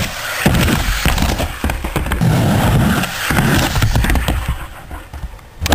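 Skateboard on a wooden mini ramp: wheels rolling and the board clattering down on the ramp as the rider falls, with several sharp clacks over a low rumble.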